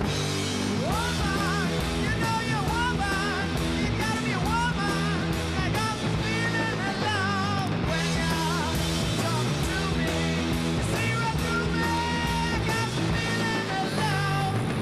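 Background music: a rock song with guitar and a singing voice coming in about a second in.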